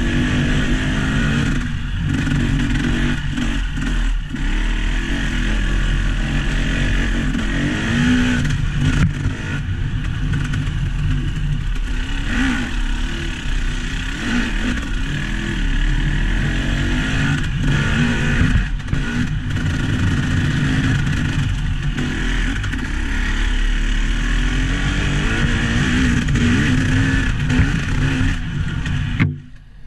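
Vehicle engine running with its revs rising and falling, with occasional knocks and rattles. The sound drops away briefly near the end.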